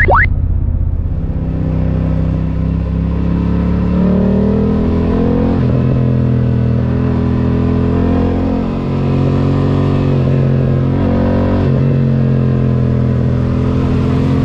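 Motorcycle engine running at road speed, heard from the moving bike, its note rising and falling in steps about four seconds in, again near six seconds and near twelve, over a steady rush of wind and road noise.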